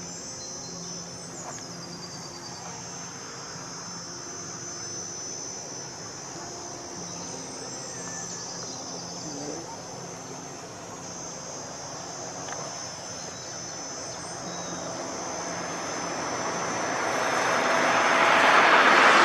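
Insects chirring steadily at a high pitch over a faint low engine hum. In the last few seconds a vehicle approaches and passes close, growing loud at the end.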